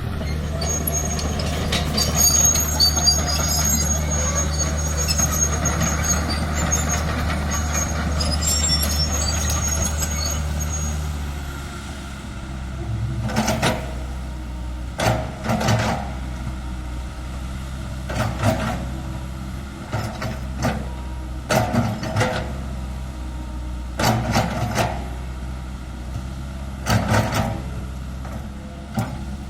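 Komatsu PC160-8LC hydraulic excavator's diesel engine running hard, with a faint high whine over it; about eleven seconds in the engine drops back and a series of sharp knocks and clanks follows, one every second or two, as the machine works.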